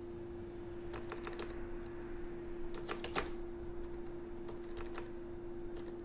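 Keys of a Logitech K400 Plus wireless keyboard being typed on: faint clicks in short runs of a few keystrokes, with pauses between.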